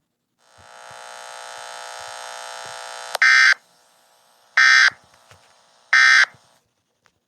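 A harsh electronic buzz swells for about three seconds and cuts off. It is followed by three short, loud digital data bursts, the Emergency Alert System's end-of-message tones that close an alert.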